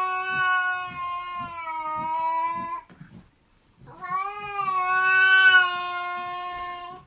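A cat yowling: two long, drawn-out calls held at a nearly steady pitch. The first breaks off about three seconds in, and the second starts about a second later.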